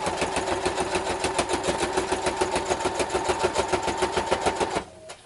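Electric sewing machine stitching at a steady fast speed through layered jacket fabric and cording, stopping shortly before the end.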